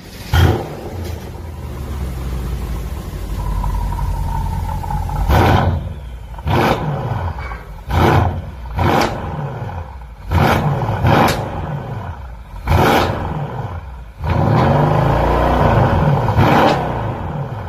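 Mercedes-AMG S63 (W222) twin-turbo V8 heard at the tailpipes through an aftermarket valve-controlled full exhaust in sport mode. It comes in with a sharp burst and idles, then gives about seven short throttle blips and one longer rev held for about two seconds near the end.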